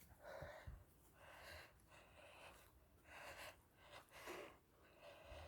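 Faint, heavy breathing, about one breath a second.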